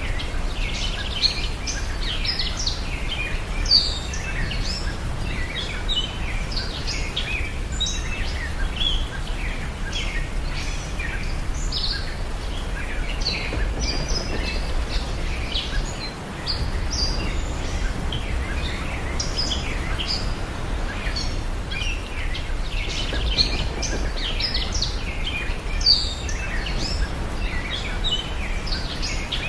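Many small birds chirping and twittering continuously over a steady low rumble of outdoor ambience, which dips briefly about halfway through.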